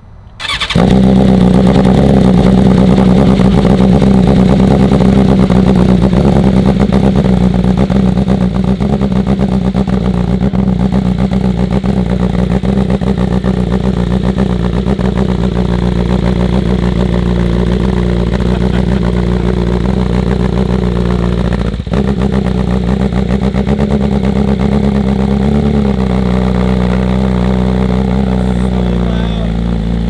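A 2020 BMW S1000RR inline-four fires up about half a second in and idles loudly through an Austin Racing GP1R full exhaust run without its dB killer. It holds a raised cold-start idle that steps down a little near the end as the idle settles.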